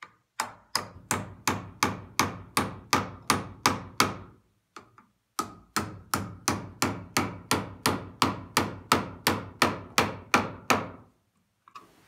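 Claw hammer driving the pre-set nails of a plastic electrical outlet box into a wooden wall stud: quick, even blows, about three a second, in two runs with a short pause about four seconds in, one run for each nail.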